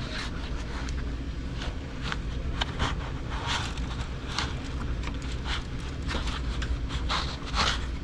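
Irregular scraping and rustling as an insulated copper refrigerant line set is pulled by hand through a cluttered ceiling space, over a steady low hum.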